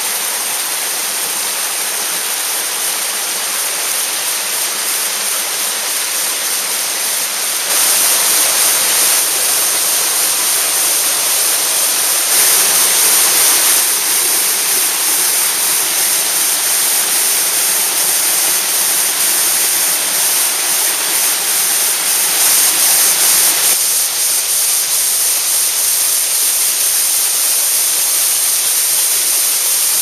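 Waterfall running full with snowmelt: a steady rush of falling water. It grows louder about eight seconds in and eases slightly near 24 seconds.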